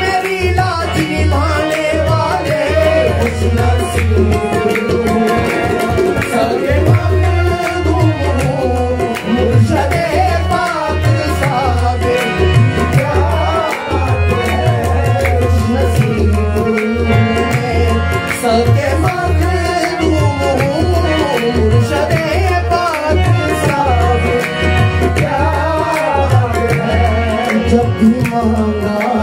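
Music for a Sufi devotional song: tabla and a deep, steady beat under a wavering melody.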